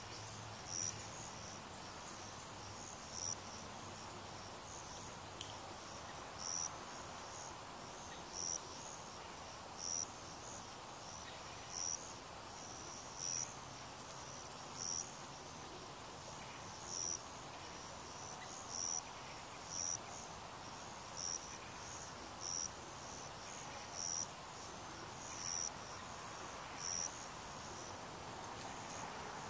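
An insect chirping in short, high chirps about every one and a half seconds, over a faint steady background hum.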